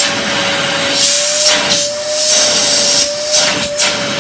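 Canister vacuum cleaner running with a steady motor whine over rushing air, the air noise swelling several times, through two hoses joined end to end.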